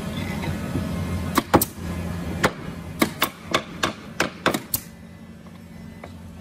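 About ten sharp, light hammer taps on a wooden beam held by a steel C-clamp, spread over about three and a half seconds, over a low steady hum that fades about two and a half seconds in.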